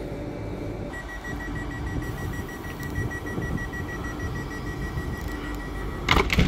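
Rapid electronic beeping at one high pitch, running for about five seconds, over a low steady rumble, then a short loud burst near the end.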